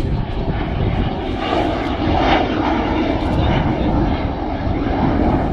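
Avro Vulcan's four Rolls-Royce Olympus jet engines running loud as the bomber flies its display, a dense jet roar that swells in the middle and drops off suddenly at the end.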